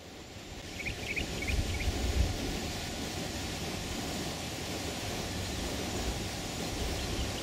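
Wind rushing over the microphone outdoors: a steady noise that swells in over the first second, with gusty low rumbles about two seconds in.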